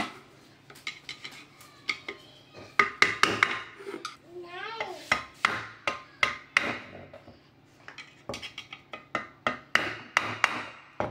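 Metal tools clinking and tapping on the vacuum cleaner's motor parts: irregular sharp clicks and knocks, sometimes several in quick succession.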